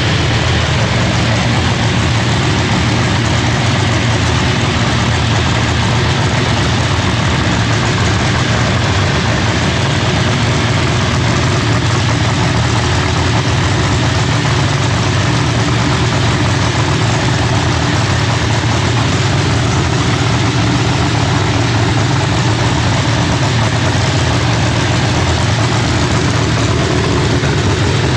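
ProLine MH7 Hemi race engine in a drag car, running at a loud, steady idle with no revs.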